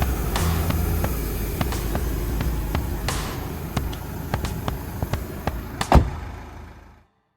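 A car engine running steadily, with scattered clicks and one loud knock about six seconds in, then fading out to silence.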